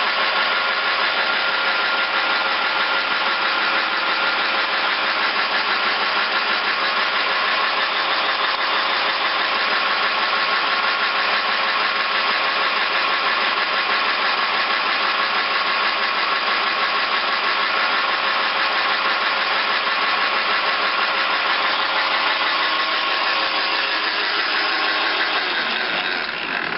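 Van Norman No. 2 duplex milling machine running under power with its table feed engaged: a steady mechanical hum with several steady whining tones from the drive and gearing. It slows and falls away near the end.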